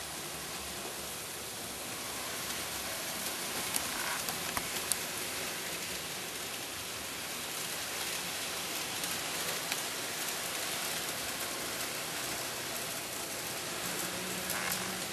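N scale model trains running on Kato Unitrack: a steady hiss of rolling wheels and motors, with a few light clicks about four to five seconds in and again near the end.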